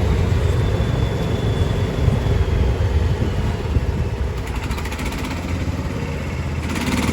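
Golf cart driving along a street: a steady low rumble of the cart running and rolling over the road.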